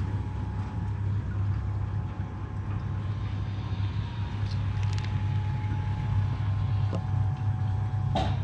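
Steady low mechanical hum with a faint steady whine above it, and a few light ticks.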